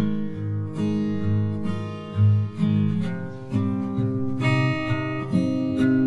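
Outro music: an acoustic guitar plucking a melody of notes that ring on and change about every half second.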